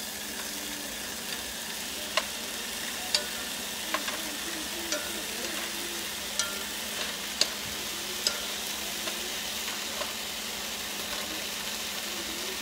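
Sausages sizzling steadily in a nonstick frying pan, with sharp clicks of metal tongs every second or so as they are turned.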